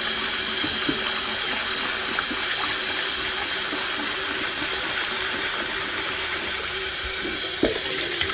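Kitchen tap running steadily into a stainless-steel strainer of split dal in a sink, the water splashing as a hand swishes the grains to rinse off the dirt. There is a light knock near the end.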